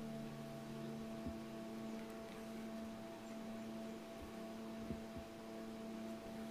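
Faint steady hum with a few soft ticks; the hand stitching itself makes almost no sound.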